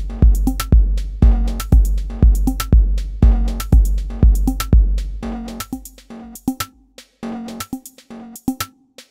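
Electronic drum pattern from the Patterning iOS drum-machine app: a deep kick about twice a second under hi-hat ticks and pitched percussion. About five seconds in, the kick fades out as its channel is muted in the app's mixer, and the beat thins to scattered hits with short gaps.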